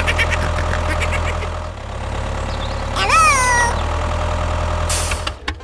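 An engine idling with a steady low hum, and a cat meowing once about three seconds in. A short rush of noise near the end, then the engine sound drops away.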